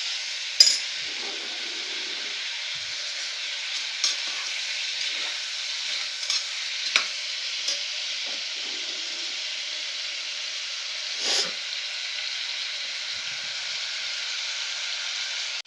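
Mutton pieces sizzling steadily in hot sesame oil in a pressure cooker, with a handful of sharp clicks and scrapes from the stirring spoon against the pot. The meat is still browning, not yet done.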